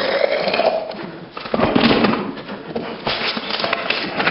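Sanding on a small diecast metal model chassis: irregular scratchy rubbing broken by small knocks.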